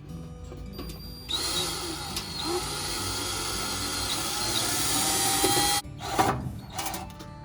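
Power drill running under load for about four and a half seconds, growing louder, then stopping suddenly, followed by two short bursts near the end, as it works the screws and holes that fasten a hose caddy to the wall.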